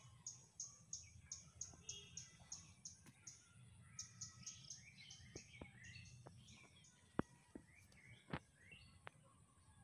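Faint outdoor birdsong: a high, short chirp repeated quickly, about five times a second, with other birds calling over it. Two sharp clicks sound near the end.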